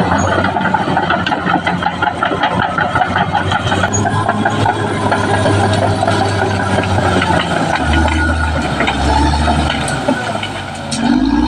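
Caterpillar D6R XL crawler bulldozer working: its diesel engine runs steadily under load while the steel tracks clank and rattle. Near the end the engine drops off briefly, then revs back up with a rising pitch.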